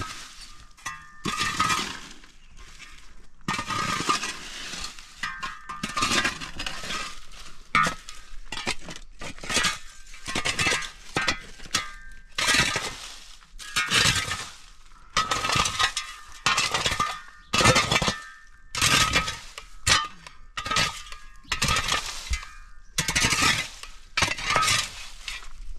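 A short-handled metal digging tool chopping and scraping into stony, gravelly ground, about one stroke a second. Each stroke is a crunch of stones with a ringing metal clink.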